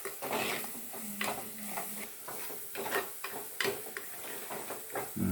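A metal spoon stirring and scraping in a cooking pan, with irregular clicks and knocks of metal on metal, as ginger-garlic paste fries in oil.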